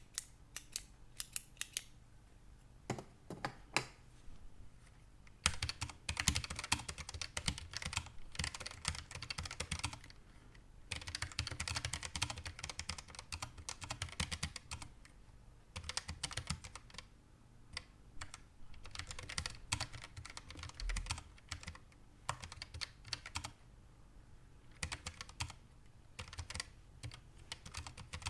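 Keychron K1 low-profile mechanical keyboard with Gateron Brown switches being typed on: runs of rapid key clicks broken by short pauses.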